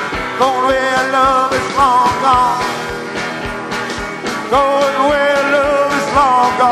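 Live rock and roll from a guitar-and-drums duo: an electric guitar plays a lead line of held, bent notes over a driving drum beat, recorded off the soundboard.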